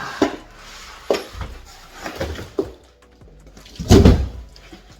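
Large cardboard box with an electric scooter packed inside being flipped upside down and shaken to dump it out: several knocks and cardboard scraping, then a loud, heavy thump about four seconds in.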